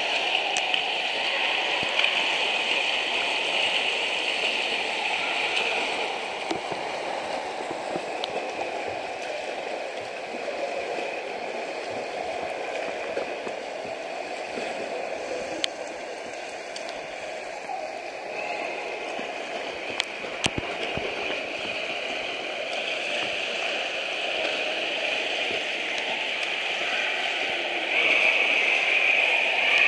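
Water splashing and churning from swimmers doing front crawl: a steady wash of noise from arm strokes and kicking, growing louder near the end.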